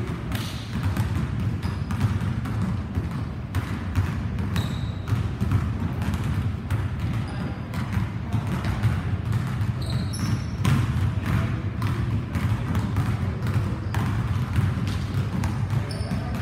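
Basketballs bouncing on a hardwood gym floor, a steady run of knocks that ring in the large hall, over a steady low rumble. A couple of brief high sneaker squeaks come about ten seconds in and again near the end.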